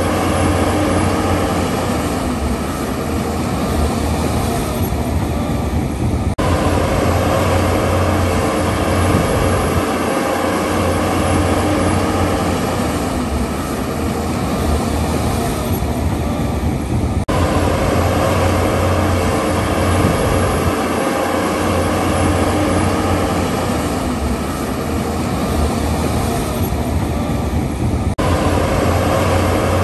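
Steady mechanical engine hum with several held tones, running as an identical loop that restarts with a sharp cut about every eleven seconds.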